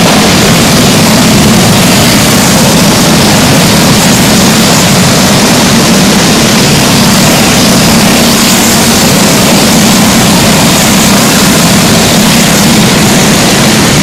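Several go-kart engines running together at racing speed: loud, continuous engine noise with no break.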